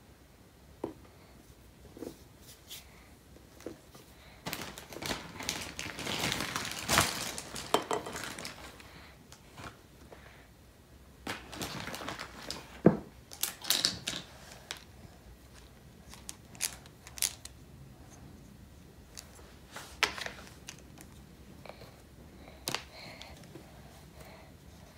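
Plastic Play-Doh tools clicking, tapping and scraping on a plastic high-chair tray, in scattered knocks with two longer stretches of scraping and rustling, one about five seconds in and one around twelve seconds.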